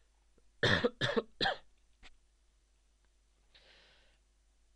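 A man coughs three times in quick succession, about a second in, then draws a soft breath a few seconds later.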